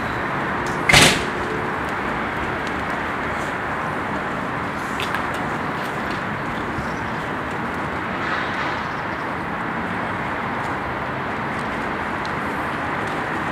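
Steady outdoor street background noise with one loud, sharp bang about a second in.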